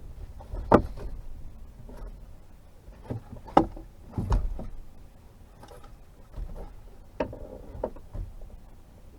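Scattered knocks and clunks of gear being handled and stowed in a fishing boat: about half a dozen sharp hits, the loudest a little under a second in, with low rumbling handling noise between them.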